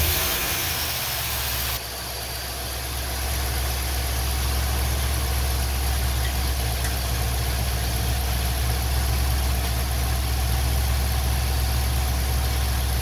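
The 2020 Ford F250's 7.3-litre gas V8 idling steadily just after being started, on its first run after an oil change with fresh oil and a new filter. A bright rushing noise runs over the engine and stops sharply about two seconds in.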